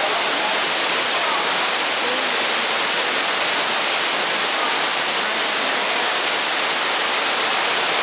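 Steady rush of falling water from an aviary waterfall, with a few faint bird calls over it.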